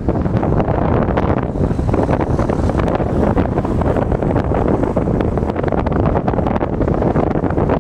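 Wind buffeting the microphone: a loud, steady, irregular rumble with no let-up.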